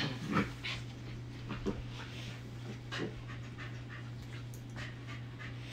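Pembroke Welsh corgi puppies panting as they play, with a few short sounds, the loudest right at the start.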